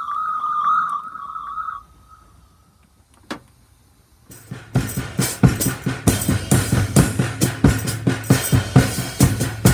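A held, slightly wavering high synth tone stops about two seconds in. After a short near-quiet gap with a single click, a band jam starts loud about four seconds in, a drum kit hit in a quick, steady beat.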